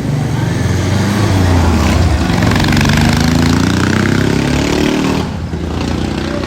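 A motor vehicle's engine in city street traffic, its note rising as it accelerates, then dropping away sharply about five seconds in.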